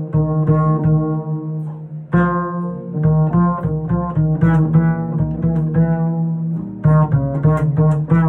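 Double bass played pizzicato: a jazz solo line of plucked notes, each ringing on under the next, with brief lulls about two seconds in and again near seven seconds.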